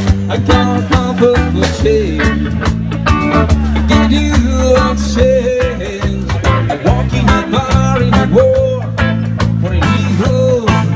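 A rock band playing a song: drums, bass guitar and electric guitar, with a melodic line bending up and down in pitch.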